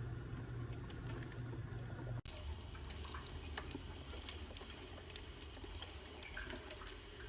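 Amaste drip coffee maker brewing: faint gurgling and dripping of hot water. A steady low hum is heard for about two seconds, then the sound changes abruptly to faint dripping with small ticks.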